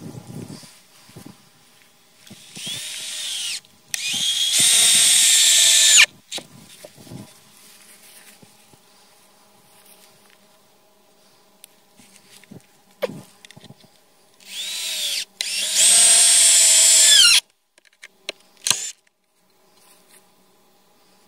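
Cordless drill driving screws down through a board into a wooden mailbox-post crosspiece: two runs, each a short burst with a rising whine and then about two seconds at full speed before it cuts off. A few light knocks fall between the runs.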